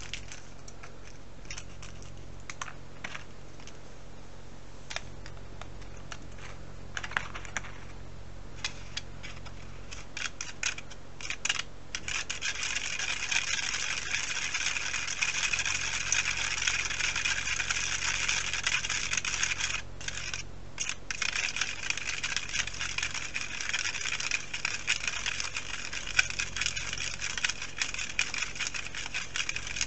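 Scattered light clicks of plastic trays and packets being handled. Then, about twelve seconds in, a fast, dense scraping starts as powder and water are stirred in a small plastic tray of a DIY candy kit, with a short pause about twenty seconds in.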